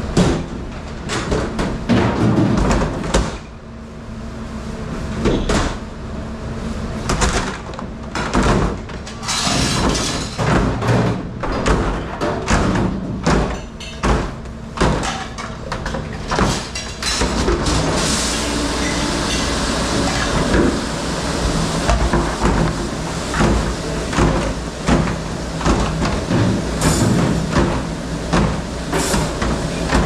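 Plastic serving trays clattering and knocking against each other and the rack as they are stacked and slotted upright into a plastic dish rack, many sharp knocks in quick succession. Underneath runs a steady machine hum, with a denser rushing noise joining about halfway through.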